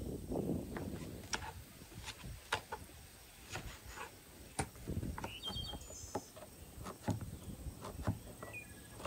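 Crinkle-cut knife chopping through watermelon rind onto a wooden cutting board, a steady series of sharp chops about one or two a second. A few short bird chirps are heard in the background.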